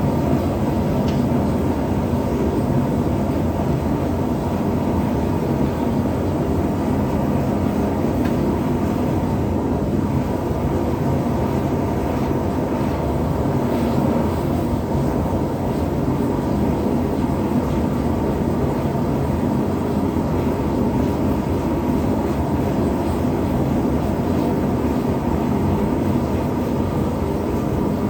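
Forge burner running with a steady, unbroken rush while the blade soaks at heat before hardening.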